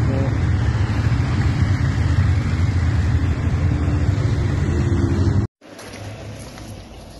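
Engines of cars and motorcycles driving off close by, a steady loud rumble. It cuts off suddenly about five and a half seconds in, leaving much quieter outdoor background noise.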